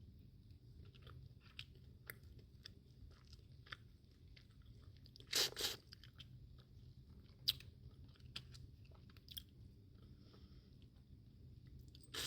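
Close-miked eating of boiled crawfish: chewing and crunching of shell, with scattered small clicks and a louder burst about five and a half seconds in.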